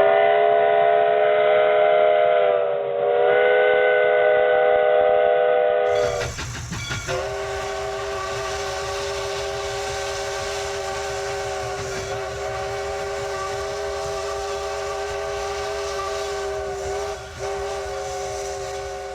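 Multi-note train chime whistles sounding in two takes. First one chord whistle is held for about six seconds with a brief dip midway. Then, after a cut, a different chord whistle is held long and steady over a low background rumble.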